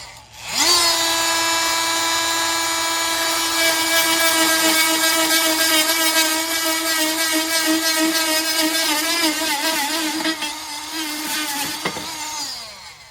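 Corded Dremel Multi-Max MM50-02 oscillating multi-tool running at its highest speed setting: it spins up quickly about half a second in, holds a steady high-pitched whine, and winds down near the end.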